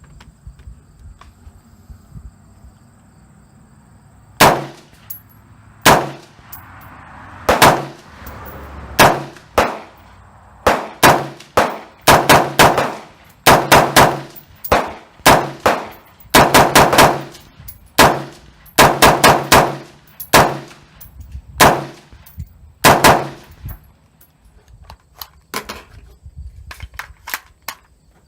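AR-15 semi-automatic rifle firing: after about four seconds of quiet, single shots a second or so apart, then quicker strings of several shots in a row, thinning out to fainter reports near the end.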